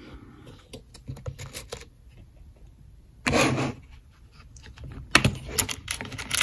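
Small plastic clicks and taps: the snap lids of plastic compartment organizers being flipped open and handled, with loose key chips and pins inside. A brief louder rustle about three seconds in, and the clicking grows busier near the end.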